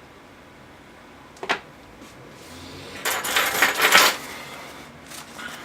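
Small hard objects being handled and set down on a surface: a single sharp click, then about a second of clattering and rattling a little later.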